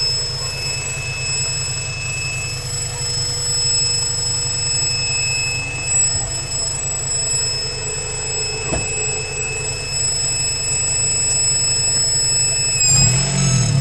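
Honda B18C6 1.8-litre DOHC VTEC four-cylinder engine running at a steady idle with a steady high-pitched whine over the engine note. Near the end, the engine sound briefly swells and the whine dips slightly in pitch.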